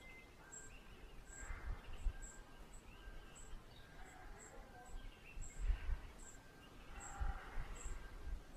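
Riverside outdoor ambience: birds calling faintly, with a short high chirp repeating every half second or so, and irregular low rumbling bursts.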